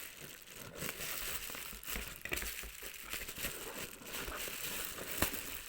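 Bubble-wrap plastic envelope crinkling and rustling as it is handled, with a sharp click about five seconds in.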